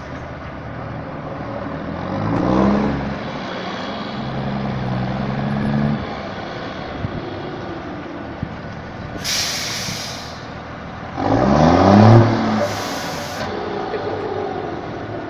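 Volkswagen Constellation truck's diesel engine revving up twice, the second rev the loudest, with a steady higher-revving stretch between them. Two short hisses of compressed air come in the second half.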